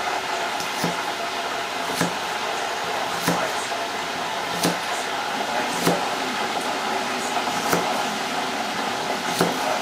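Kitchen knife cutting through onion onto a wooden cutting board, a sharp knock about every second and a quarter, over a steady hiss of mushrooms deep-frying in oil.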